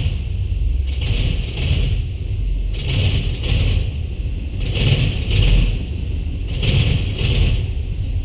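Freight train of autorack cars rolling past: a steady rumble of steel wheels on rail, with a double clack about every two seconds as the paired trucks at each car joint go by.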